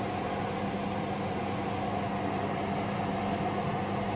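Steady mechanical hum, one low tone and a higher one over an even hiss, holding constant throughout.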